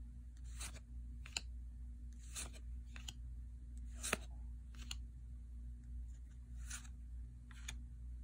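Yu-Gi-Oh trading cards being flipped through one at a time, each card sliding off the stack with a short papery swish or snap, about once a second, over a faint low hum.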